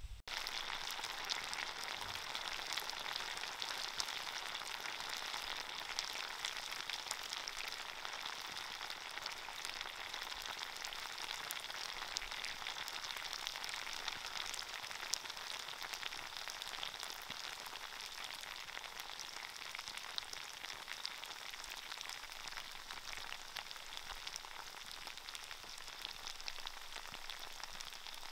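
Mackerel tuna pieces in spicy sauce and oil sizzling in a frying pan, a steady dense crackle of many small pops.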